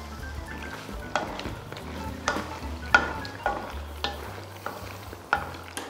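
Wooden spoon stirring paccheri through hot tomato sauce in a frying pan, the sauce sizzling; the spoon knocks against the pan about twice a second from about a second in. The pasta is being finished in its sauce.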